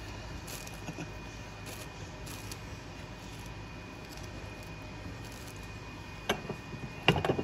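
Table knife scraping softened butter across a slice of rye bread, faint over a steady background hum; near the end, a few sharp knocks and clicks.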